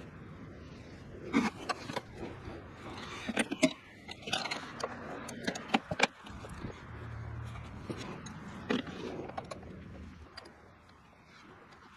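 Hand wrenches clinking and clicking irregularly on metal brake-line and master cylinder nuts, sped up, over a steady rush of wind.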